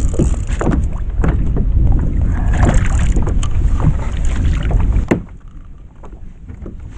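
Wind buffeting the microphone, with knocks and rustles of hands and gear working on the kayak. A sharp click about five seconds in, after which the wind and knocking drop away.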